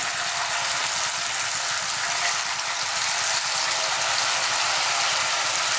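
Pieces of marinated chicken breast frying in hot oil in a pan: a steady sizzle.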